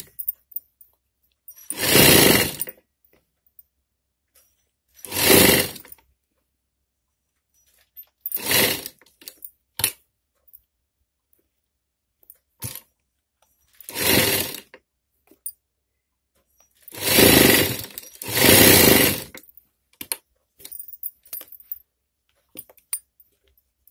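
Sewing machine stitching a blouse seam in short runs of about a second each, six times, the last two back to back, with faint clicks of fabric handling between runs.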